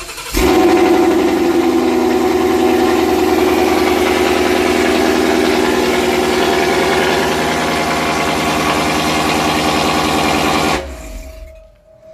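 Ford Mustang GT's 5.0 V8, fitted with long-tube catted headers and a catback exhaust, fires up and idles loudly and steadily. It stops about eleven seconds in.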